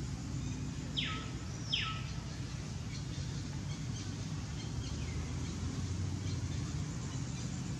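A bird calling twice with quick downward-sweeping whistles about a second in, and a fainter call a few seconds later, over a steady low rumble.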